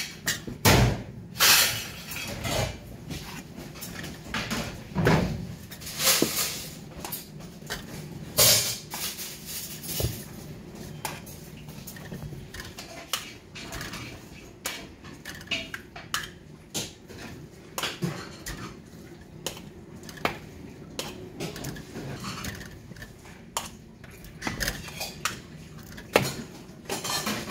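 Kitchen clatter: irregular knocks and clinks of pots, dishes and utensils being handled, some strokes louder than others.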